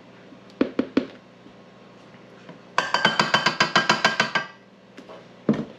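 A few knocks, then a quick run of about a dozen taps as a copper measuring cup full of flour is rapped against a KitchenAid stand mixer's stainless steel bowl to empty it, the bowl ringing with each tap. A single knock near the end.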